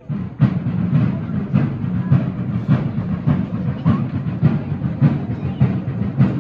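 Drums beating a steady, even rhythm of about two strokes a second, the deep low strikes starting suddenly.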